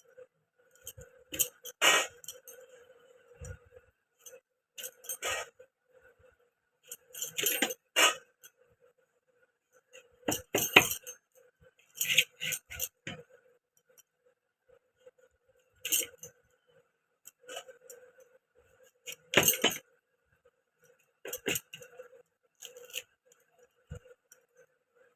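Raw mangoes being cut with a knife: irregular sharp clicks and knocks of the blade going through the hard fruit and hitting the surface below, some single and some in quick clusters. A faint steady hum runs underneath.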